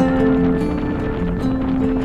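Background music of long held notes over a low, steady rumble.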